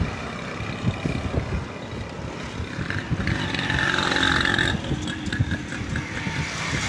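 Road traffic passing, with one vehicle going by more loudly between about three and five seconds in, over a steady low rumble.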